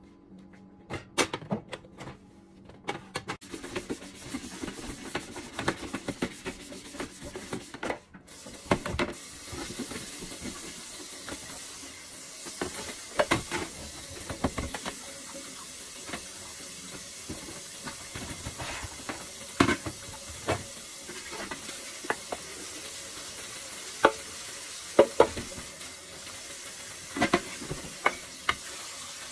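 Kitchen faucet water running steadily into the sink during hand dishwashing, starting about three seconds in, with frequent sharp clinks and clunks of cups, pots and utensils knocking against each other and the sink.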